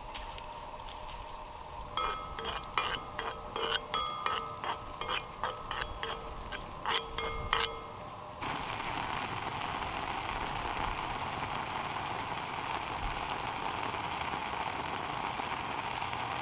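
A quick run of light clinks and knocks with a short metallic ring, then, from about eight seconds in, steady sizzling and bubbling of strawberries cooking down into a sauce in a cast-iron skillet over campfire coals.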